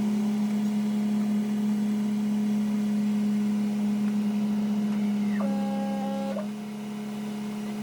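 A machine motor running with a steady hum. A brief higher tone sounds for about a second around five and a half seconds in, and the hum drops somewhat in level near the end.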